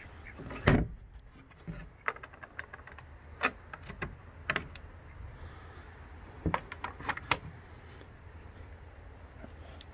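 Wooden nesting-box access door of a chicken coop shut with a knock, then a small metal door latch clicking and clacking as it is worked, several sharp clicks over the next few seconds.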